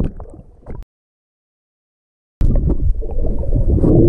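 Muffled underwater rumble and sloshing picked up by an action camera submerged in murky lake water. The sound cuts to dead silence for about a second and a half, then comes back as a loud muffled rumble.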